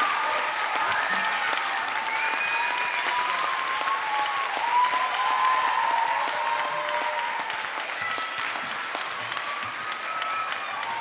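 Audience applauding and cheering, with many high voices shouting and whooping over the clapping, after a song.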